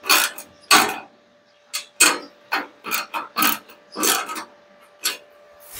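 A small socket ratchet clicking through about ten short back-swings at an uneven pace as it tightens a hex bolt on a sheet-metal bracket.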